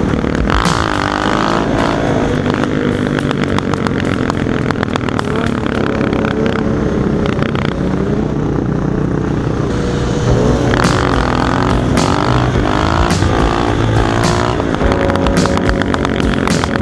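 Several motorcycle engines running in a group ride, revving up about a second in and again between about ten and fourteen seconds in.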